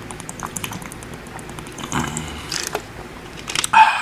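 A man drinking from a plastic water bottle: swallowing and small mouth clicks and bottle crackles, then a short, loud vocal sound near the end.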